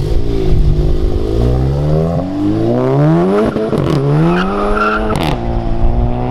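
Modified turbocharged four-cylinder engine of a Volkswagen Mk7 GTI track car accelerating hard away, its revs rising and then falling back at two upshifts, each marked by a sharp crack, before running steady near the end.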